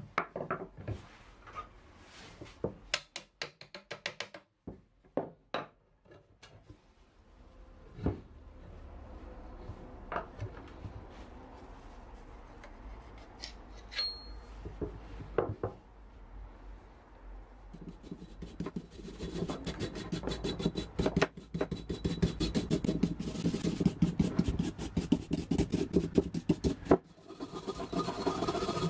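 Loose steel parts of old rusty loppers clinking and knocking on a wooden bench as they are handled and set down. About two-thirds of the way through, a continuous fast rasping scrape sets in as rust is scraped off the steel hooked blade with a hand tool.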